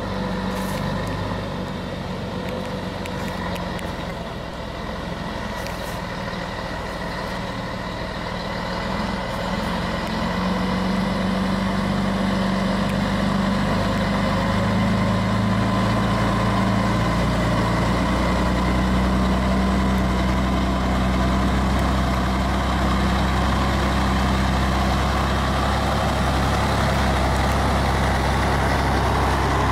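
Heavy vehicle engine running steadily, growing louder about ten seconds in and holding there.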